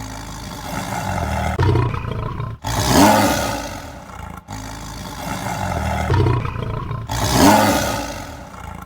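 Tiger roaring: deep, rough roars that swell and fade, repeating every few seconds.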